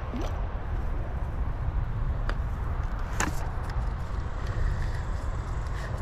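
Steady low rumble, like wind buffeting the microphone, with two short sharp knocks about two and three seconds in.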